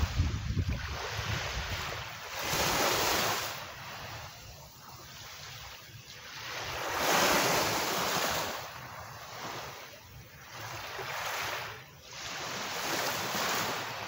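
Small waves from a calm sea breaking on a sandy beach and washing up the sand, a foamy hiss that swells and fades every few seconds. Wind rumbles on the microphone in the first second.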